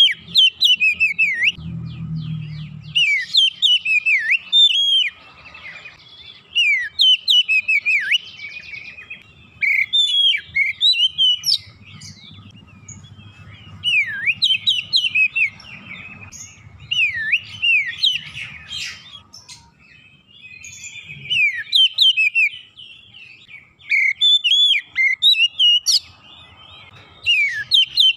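Oriental magpie-robin singing in lively repeated bursts: loud phrases of varied whistled notes that swoop up and down, about one every two seconds, with short pauses between.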